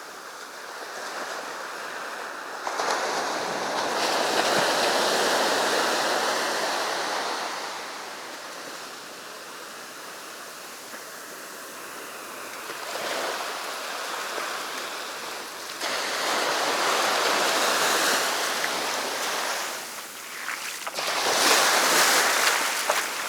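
Sea waves breaking and washing up the beach, swelling and falling away every few seconds, with the loudest surge near the end.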